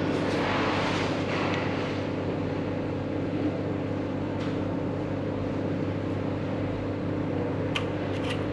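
Steady mechanical hum with several held pitches, from machinery running in a workshop. A few light clicks of metal motor parts being handled come in the first second and again near the end.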